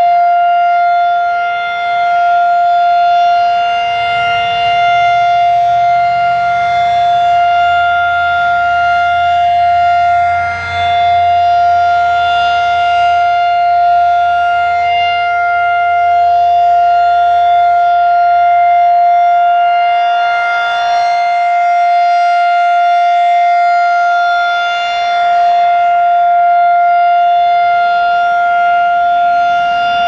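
Federal Signal 2001-SRN rotating electromechanical warning siren sounding its steady alert tone at one held pitch. The loud tone dips briefly about every ten seconds as the rotating horn turns away and back.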